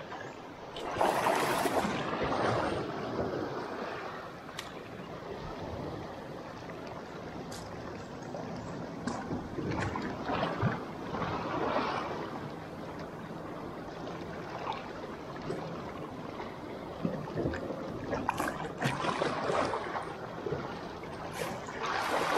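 Small sea waves washing and splashing over shallow rocks, swelling up every several seconds, the loudest about a second in and near the end, with wind on the microphone.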